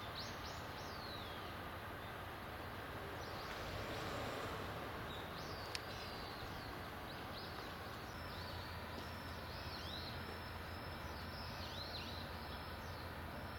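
Small birds chirping in short rising and falling calls, on and off, over a steady low background hum, with one sharp click a little before halfway.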